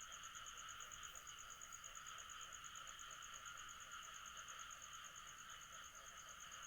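Faint, steady trilling of crickets and other insects: a high, fast-pulsing tone over a lower continuous buzz.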